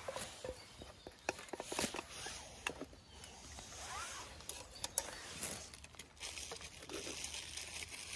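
Irregular clicks, knocks and rustling as plates, utensils and food packaging are handled during camp breakfast cooking.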